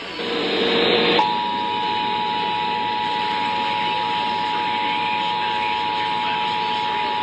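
Emergency Alert System broadcast: a short noisy burst of about a second, the end of the alert's digital header, then the steady two-tone EAS attention signal (853 and 960 Hz together). It comes over hissy radio reception and marks the start of a Required Monthly Test.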